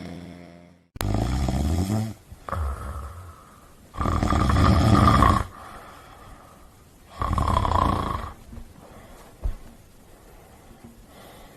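Loud snoring: four drawn-out snores a couple of seconds apart, starting suddenly about a second in, the third the loudest.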